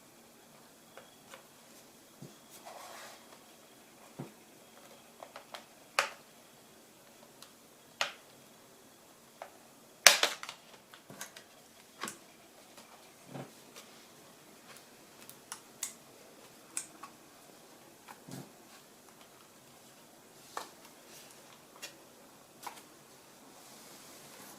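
Scattered small clicks and taps of hands and tools working on a ThinkPad X240 laptop's case and parts during disassembly, with one sharp snap about ten seconds in and a short scrape near the start.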